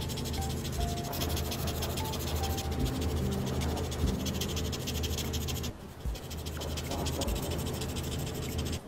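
Brush-tipped alcohol marker scribbling rapidly on paper as it colours in swatch boxes, pausing briefly about six seconds in. Soft background music with held low notes runs beneath.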